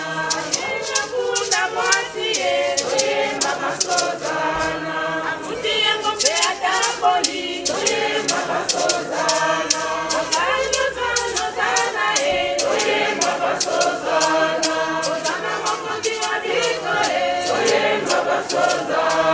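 A crowd of people singing a hymn together as they walk in procession, unaccompanied by instruments, over a steady percussive beat.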